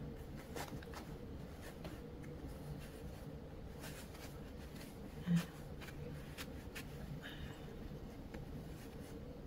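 Quiet rustling and scratching of cotton batting and cloth being handled as stuffing is pushed into a sewn fabric kitchen towel, over a faint steady hum.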